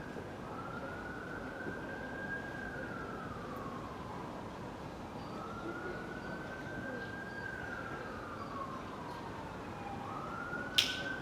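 Siren wailing slowly. Its pitch climbs, holds, then slides down, about two and a half cycles of roughly five seconds each. A single sharp crack comes near the end.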